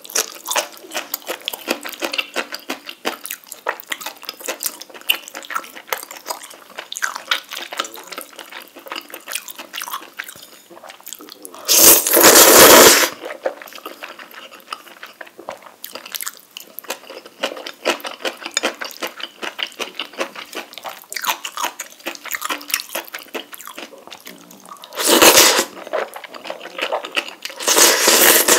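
Close-miked eating of rabokki: wet chewing and mouth noises over ramen noodles and rice cakes in sauce. Three loud slurps stand out, about twelve seconds in and twice near the end.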